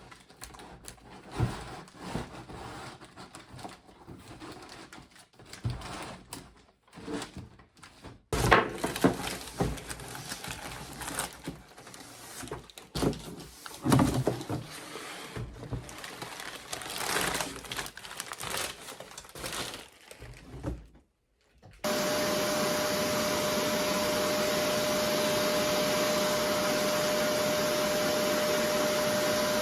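Irregular knocks and clatter of things being handled, then about twenty-two seconds in an upholstery-washing machine's motor switches on and runs steadily with a constant whine.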